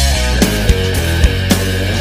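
Loud heavy rock music with a pounding drum beat.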